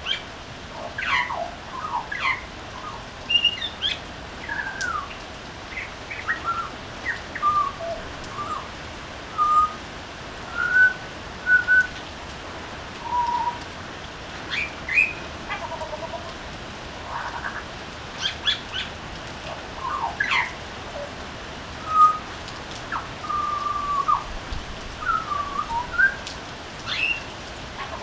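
Butcherbird singing: a loose string of clear whistled notes, some held on one pitch and some gliding up or down, mixed with short sharp calls, with brief pauses between phrases.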